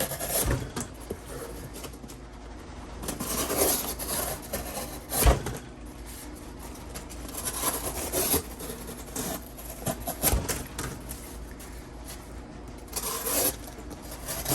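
SOG MT multi-tool knife blade slicing through cardboard in several long scraping cuts, with a couple of sharp knocks in between. The blade drags about twice during the cuts.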